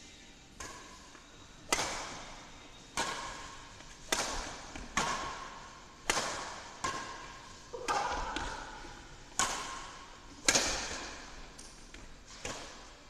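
Badminton rackets striking a shuttlecock in a fast doubles rally: about a dozen sharp smacks, roughly one a second, each echoing briefly in the large hall.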